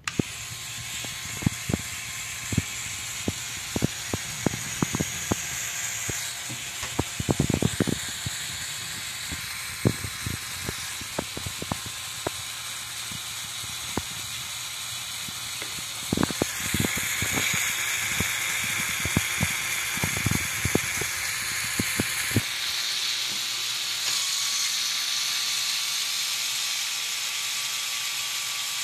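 Lego Technic Power Functions electric motor running and driving the crane truck's plastic gear train, a steady whine with scattered clicks and knocks from the gears and levers. The motor's note shifts twice, after about the middle and again a little later, as different crane functions are switched in and the load changes.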